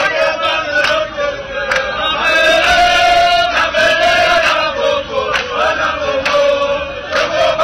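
A marching crowd singing a chant together in unison, many voices holding long notes.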